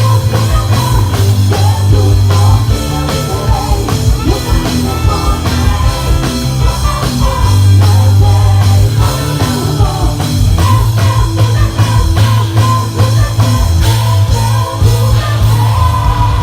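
Live gospel band playing a rock-style song, with electric guitar, a heavy bass line and drums, and singing over it.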